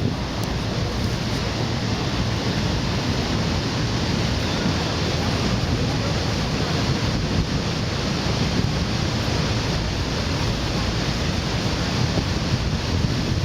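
Steady roar of the Horseshoe Falls at Niagara, a dense wash of falling water, with wind buffeting the microphone.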